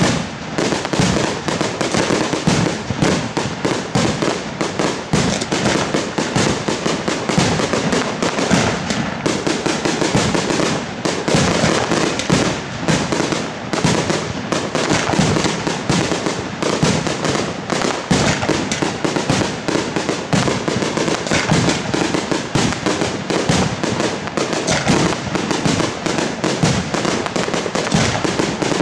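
Fireworks display in a dense, unbroken barrage: aerial shell bursts and crackle following one another several times a second.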